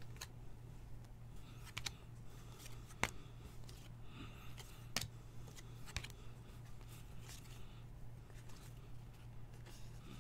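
Trading cards being handled and sorted by hand: soft sliding and flicking, with several sharp clicks, the loudest about three seconds in. A steady low hum runs underneath.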